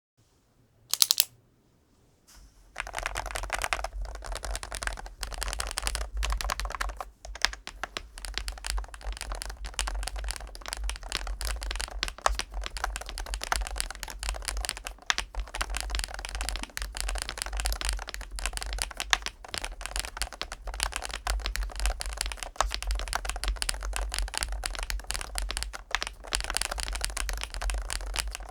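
Fast, continuous typing on a MoeeTech GLITTER65 HE Pro, a magnetic Hall-effect switch keyboard in a polycarbonate case: a dense run of keystroke clicks starting about three seconds in. A single short, sharp sound comes about a second in, before the typing.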